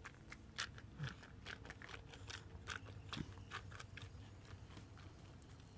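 Toddler sucking water through the straw of a plastic sippy cup, a faint run of small clicking sips.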